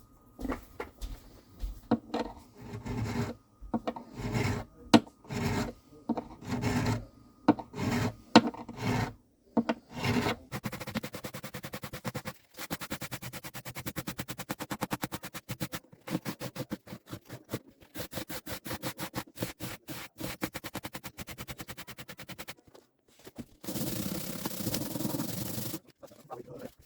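Hand abrading of a guitar part, the rasp of a file or abrasive rubbed back and forth. It starts with irregular separate strokes, turns into a fast, even back-and-forth from about ten seconds in, and near the end becomes one continuous rasp.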